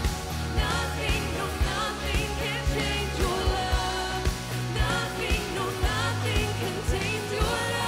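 A worship band playing live: voices singing over electric and acoustic guitars with a steady drum beat of about two hits a second.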